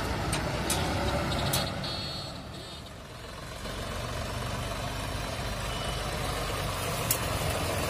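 John Deere 5050E tractor's three-cylinder diesel engine running steadily as it tows a paddy thresher, with a few sharp clicks. The sound dips briefly about two to three seconds in.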